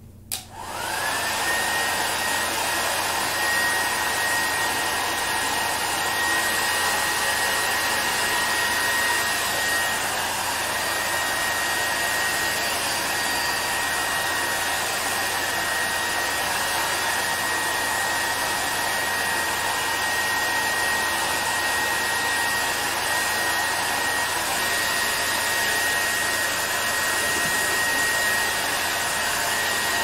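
Handheld hair dryer switched on, its motor whine rising within the first second, then running steadily with a constant high whine over the rush of air.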